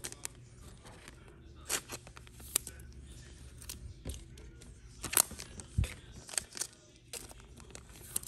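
Thin clear plastic card sleeves rustling as trading cards are handled and slid into them, with several short sharp swishes and clicks scattered through.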